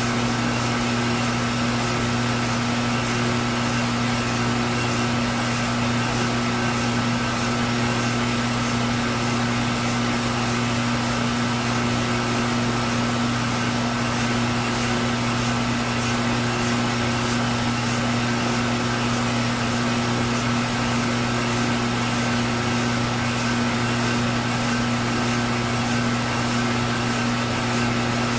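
Metalworking machine tool running steadily with a constant hum, a machining pass on the end of a steel stern tube.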